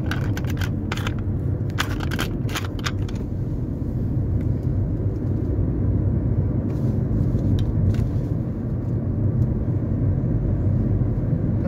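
Road and engine noise heard inside a moving car's cabin: a steady low rumble, with a few sharp clicks in the first three seconds.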